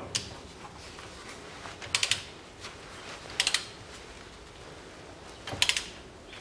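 Socket ratchet clicking in three short bursts of quick pawl clicks as it is swung back and forth, tightening the drain plug of the rear axle differential.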